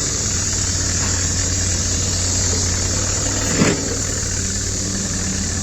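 Excavator's diesel engine running steadily with a low hum while the machine levels ground, with one short, falling higher sound about three and a half seconds in.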